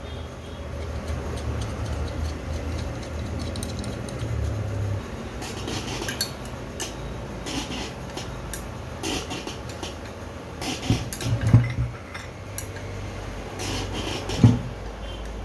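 Metal turbocharger parts and hand tools clinking and clicking as they are handled, with a few louder knocks near the end; a low hum under the first few seconds.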